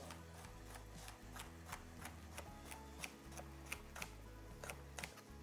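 Knife chopping broccolini finely on a wooden cutting board: faint, quick, light taps of the blade on the board, about three a second.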